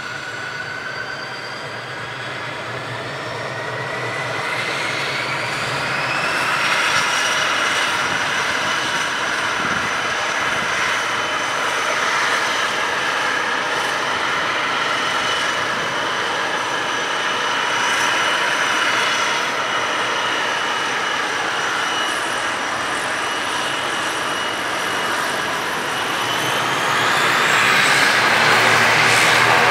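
ATR 72-500's Pratt & Whitney Canada PW127 turboprop engine starting up. Its whine climbs in pitch over the first several seconds as it spools up, then holds steady, and near the end it climbs again and gets louder as the propeller speeds up.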